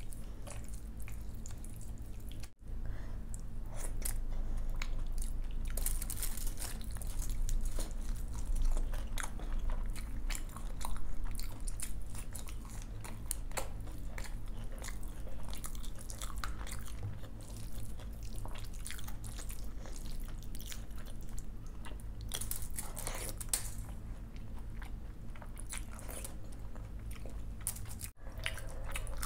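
Close-miked eating: a woman chewing and biting mouthfuls of curd rice and fried vegetables eaten by hand, with irregular mouth clicks and occasional crunches, louder in stretches.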